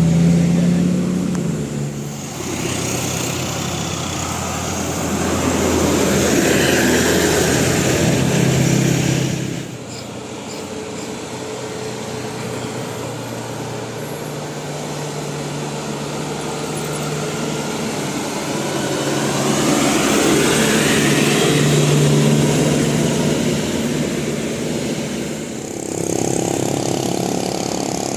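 Heavy road vehicles, buses, running and driving past, with an engine revving up and rising in pitch about two-thirds of the way through. The sound changes abruptly twice.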